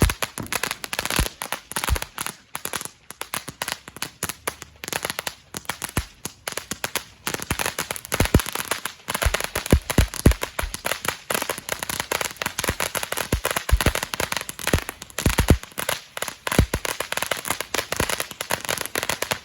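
"Freaky Tiki" consumer firework going off: a dense, steady crackling with many louder pops and bangs scattered throughout.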